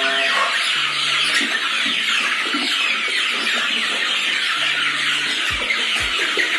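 A large flock of young ayam kampung super chickens peeping and cheeping all at once, a dense chorus of short, high, falling peeps, at feeding time. A couple of low thumps come near the end.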